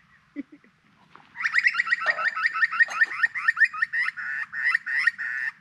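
A bird calling close by: a fast run of repeated call notes, about four a second, starting about a second and a half in and lasting some four seconds.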